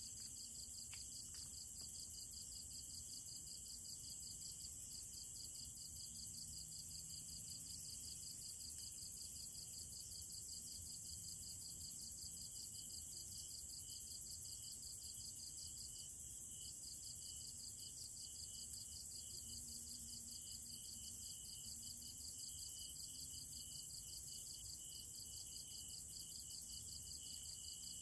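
Night chorus of crickets and other insects: a steady, fast-pulsing high trill.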